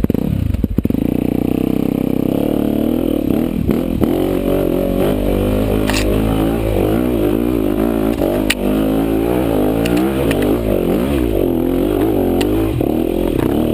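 Dirt-bike engine running under load, revving up and down with its pitch rising and falling repeatedly, with a couple of sharp knocks.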